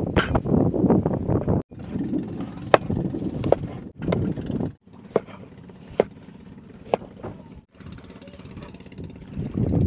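Kitchen knife cutting a squash on a wooden cutting board: single sharp knocks of the blade striking the board, about one every second, over a steady low rumble. The sound drops out abruptly three times for a moment.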